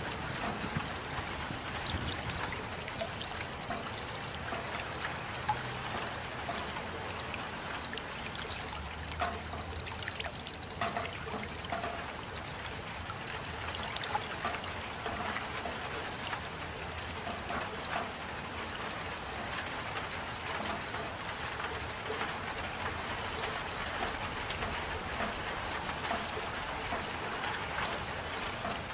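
Steady rain with many small drops pattering and water trickling and dripping.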